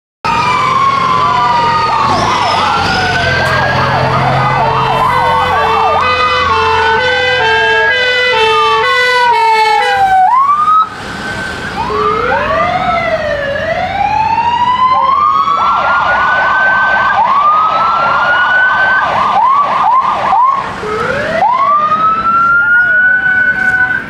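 Several emergency sirens from a convoy of fire engines sounding at once, starting abruptly: rising and falling wails overlap with a two-tone hi-lo siren, and a fast yelp takes over in the second half.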